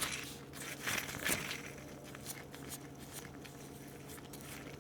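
A used ball bearing from a Borg Warner T19 manual transmission shaft spun by hand, giving a faint rough ticking with a few handling clicks in the first second or so. The bearing runs a little rough: it is starting to wear, though it is not terrible.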